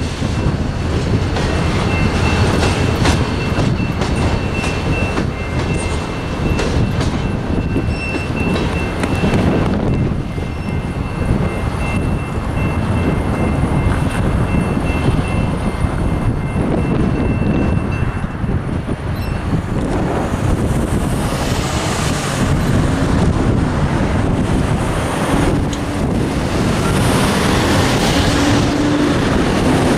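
Freight train cars rolling through a level crossing, wheels clattering on the rails, while the crossing bells ring steadily. The bells stop a little past halfway, and road cars pass over the crossing near the end, one engine rising in pitch as it pulls away.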